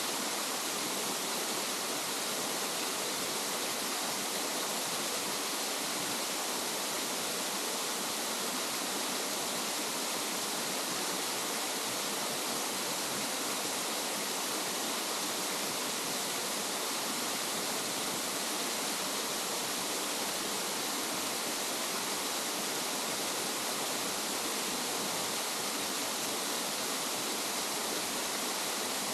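Waterfall: a steady, unbroken rush of falling water, mostly a bright hiss with little low rumble.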